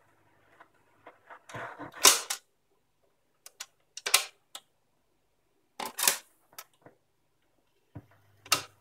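Garrard RC65A record changer's mechanism clicking and clunking through its change cycle between 78 RPM records, as the tone arm lifts and swings aside. There are several separate clunks a couple of seconds apart, the loudest about two seconds in.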